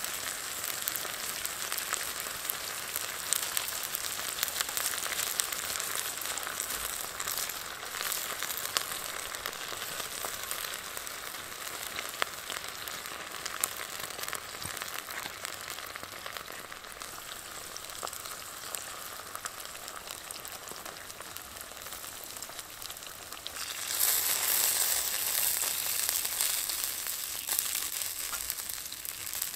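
Sliced onions sizzling as they fry in a carbon steel pan over a campfire, with scattered pops. About 24 seconds in the sizzle turns louder as tomatoes cook with the onions and a wooden spoon stirs them.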